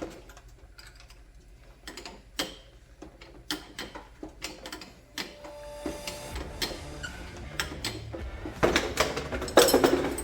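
Irregular clicks and light metallic knocks of hand tools on car front-suspension parts being tightened, with a louder, denser clatter near the end.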